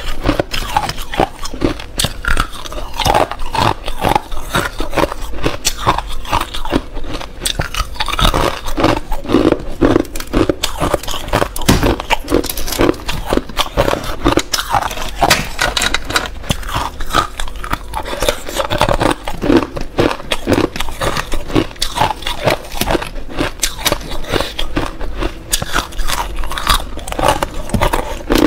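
Thin clear ice being bitten and chewed close to a clip-on microphone: a steady stream of sharp crunches and cracks as the thin pieces shatter.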